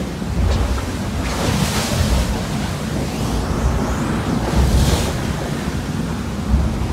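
Wind buffeting the microphone over the rush of the sea along the hull of an IMOCA racing yacht sailing fast in rough water, with surges of spray hiss about a second and a half in and again around five seconds.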